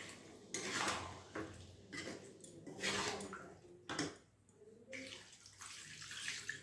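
Water poured from a steel tumbler into a hot kadai of frying egg-and-potato masala, splashing and sizzling in short bursts about once a second, with a metal spatula stirring the pan.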